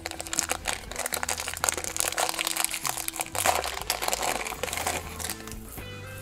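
Crinkly packaging being handled and opened to take out a metal bag chain, a dense run of crackles that dies down about five and a half seconds in.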